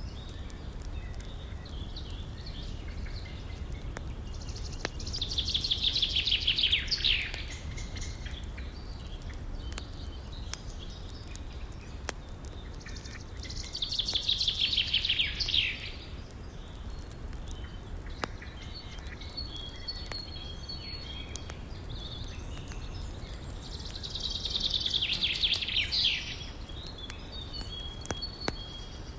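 A songbird sings three times, about ten seconds apart, each song a fast trill that falls in pitch over about two seconds. Underneath run a steady low rush of river water and the sparse crackle of a wood fire.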